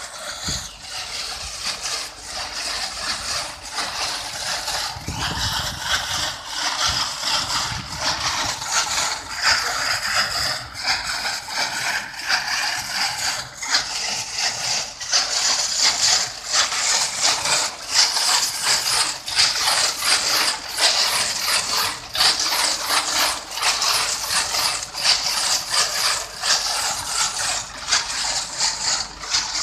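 Tractor-driven turmeric polishing drum turning, the dried turmeric rhizomes tumbling inside it in a continuous dense rattle as their skins are rubbed off, with the New Holland 3230 tractor's engine running underneath.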